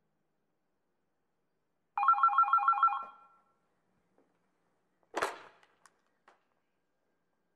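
A telephone-like electronic ring about two seconds in: a rapid trill of about nine pulses lasting about a second. About five seconds in comes a short hissing noise burst.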